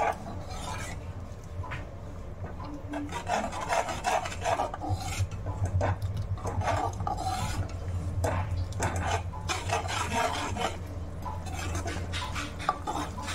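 Perforated steel spoon scraping and stirring a thick masala in a steel kadai: repeated, irregular rasping strokes against the pan, over a low steady hum.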